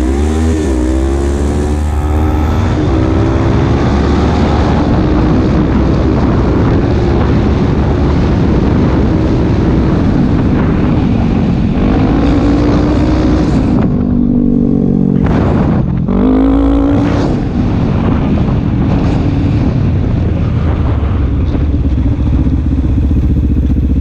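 Quad bike (ATV) engine being ridden under throttle. The revs climb sharply at the start and rise and fall as it goes. About fourteen seconds in the throttle is briefly closed, then the revs climb quickly again.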